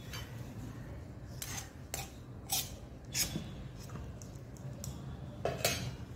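A steel tumbler knocking and scraping against a stainless steel bowl while rice-flour dough is pressed and kneaded with it: a handful of short metallic clinks, the loudest near the end.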